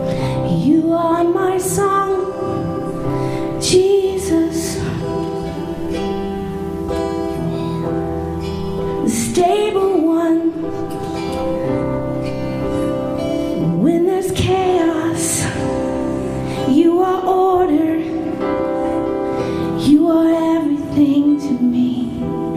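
Live worship band playing a slow song: sustained keyboard chords with guitar, and a singer's voice rising into long held notes every few seconds.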